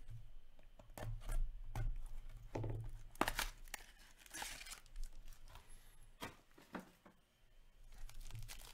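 Foil wrapper of an Upper Deck SP Game Used hockey card pack crinkling and tearing as it is opened by hand, a string of sharp crackles and short rustles, loudest about three seconds in.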